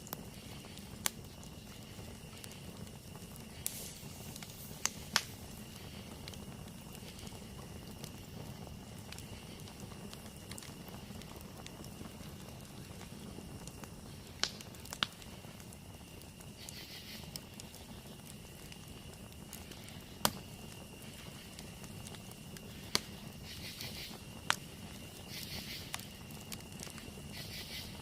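Campfire burning with a steady low rush and about a dozen sharp, irregular crackling pops. A steady high-pitched insect drone runs underneath, joined now and then by bursts of fast trilling.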